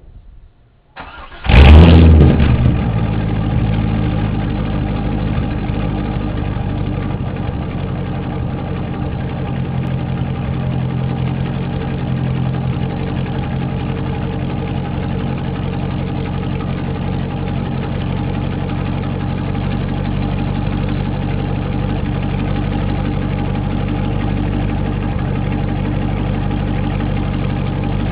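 Corvette engine with a straight-pipe exhaust (no mufflers, high-flow cats) cranking and firing about a second in, flaring up loudly, then settling into a steady, deep idle.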